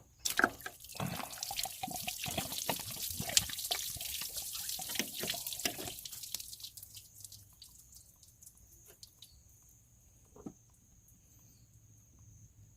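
Liquid pouring and splashing for about six seconds, then a few scattered drips.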